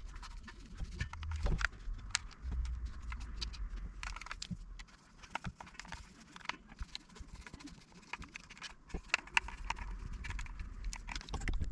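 Small screws being driven back into the plastic case of a Ben 10 Omnitrix toy: irregular light clicks and ticks of the screwdriver and screws, with low knocks of the toy being handled and a sharper click at the end.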